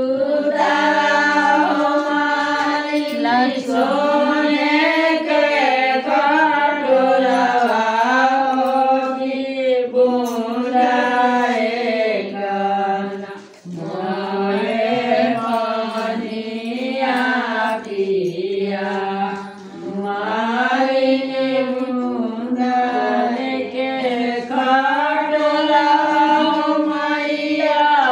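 A group of women singing an unaccompanied devotional folk song (devi geet, a song to the mother goddess sung at the lagan ritual), with long held, gliding notes and a short breath pause about halfway through.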